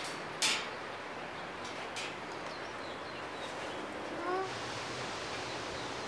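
Hand spray bottle squirting a short burst of mist about half a second in, with a fainter squirt around two seconds, over a steady hiss. A brief rising squeak comes around four seconds in.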